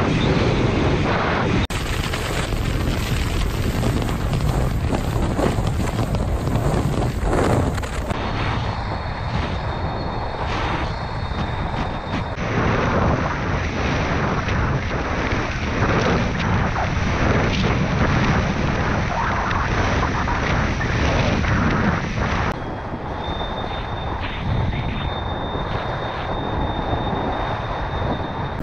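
Wind rushing over an action camera's microphone while kitefoiling at speed, mixed with the hiss and splash of water under the board. A thin, steady high whistle comes in twice for a few seconds.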